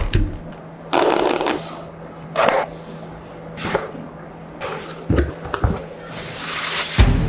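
Keyboard packaging being unboxed: a cardboard box and its wrapping handled in short bursts of rustling and sliding, with a few dull knocks as the box is set down or opened.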